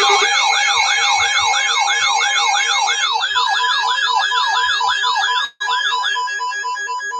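Electronic alert siren tone: a rapid wailing sweep repeating about twice a second, layered with steady and beeping alert tones. The sweep stops about six seconds in, leaving the intermittent beeps, and the sound cuts out for a moment about five and a half seconds in.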